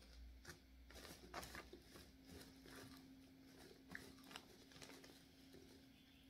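Faint crinkling and crackling of a plastic popcorn snack bag as a hand reaches inside it, a scatter of small crackles that thins out near the end.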